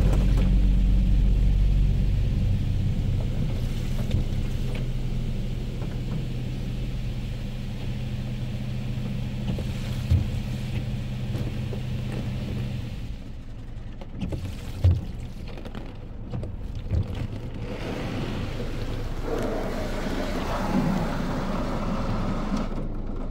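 A touch-free automatic car wash heard from inside the car. A steady low machine hum runs until it cuts off about halfway through, a few dull knocks follow, and a louder noisy spell builds near the end.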